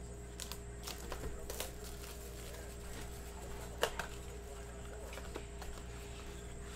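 Cardboard blaster box of trading cards being opened by hand: flaps pried up and the contents pulled out, with scattered rustles and clicks, the sharpest about four seconds in. A steady faint hum runs underneath.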